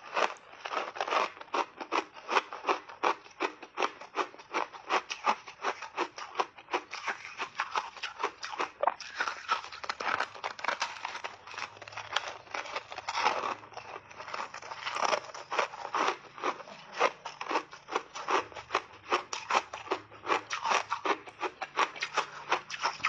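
Crunching bites and chewing of a block of refrozen ice with mixed berries frozen into it: a fast, crackling run of crunches, many to the second.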